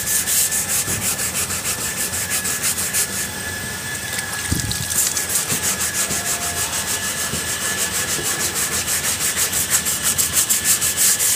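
Sanding block with 240-grit sandpaper rubbed quickly back and forth over cured body filler on a car body panel: a fast rhythmic scratching that sounds not very coarse. The strokes ease off briefly a little after three seconds in, with a single low thump, then pick up again.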